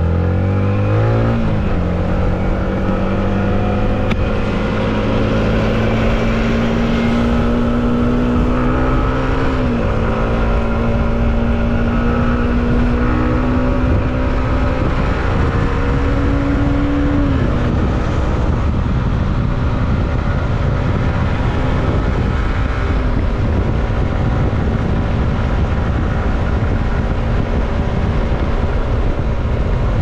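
Yamaha MT15's single-cylinder engine under way: the revs climb quickly at the start, then it cruises at steady revs, the pitch creeping up and dropping back three times. A steady rush of wind noise runs underneath.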